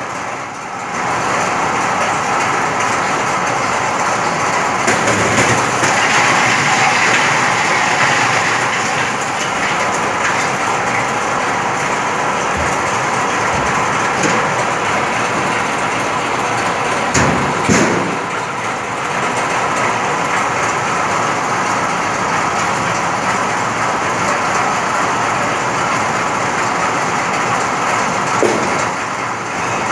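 Ice crusher machine running, grinding blocks of ice into chips with a loud, steady mechanical noise. A couple of sharper knocks come a little past halfway.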